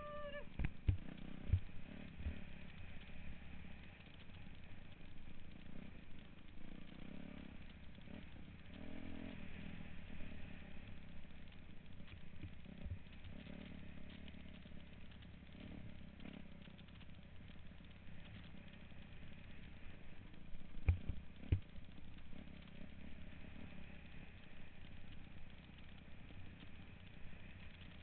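Dirt bike engine running as the bike rides along a rough trail, with a few sharp knocks, several close together near the start and two more about twenty seconds later.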